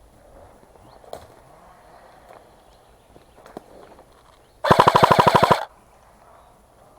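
Airsoft gun firing one full-auto burst of about a second, roughly fifteen shots a second, with a few faint single clicks before it.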